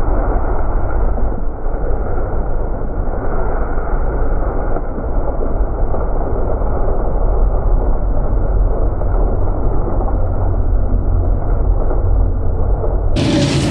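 20 hp Billy Goat leaf vacuum running while its intake nozzle sucks leaves into the hose: a loud steady rush of engine and airflow, dull and muffled with no high end. Near the end it changes suddenly to a brighter, fuller running sound.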